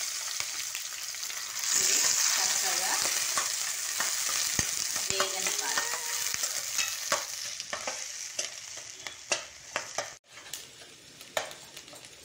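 Sliced onion and green chillies sizzling in hot oil in a kadai while being stirred with a spatula. The sizzle swells about two seconds in and then gradually dies down, with spatula scrapes and taps against the pan in the second half.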